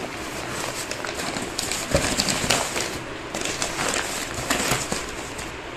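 Brown kraft packing paper crinkling and rustling as hands fold it over and press it down, a run of dry crackles with louder rustles about two seconds in and again near four and a half seconds.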